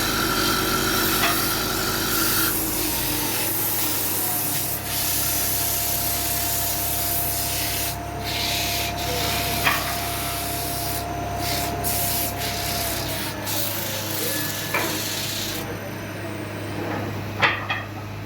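Sandpaper rubbing against a wooden workpiece, a steady scratchy hiss over a low machine hum, with a few sharp clicks and the texture changing abruptly several times.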